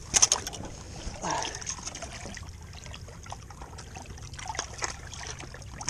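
Water trickling and lapping among shoreline rocks, with a quick run of sharp clicks just at the start and scattered small ticks after.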